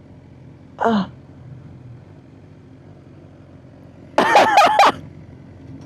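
A person's non-speech vocal sounds: a short falling vocal sound about a second in, then a louder half-second burst of coughing or throat-clearing a little after four seconds, over a faint steady background hum.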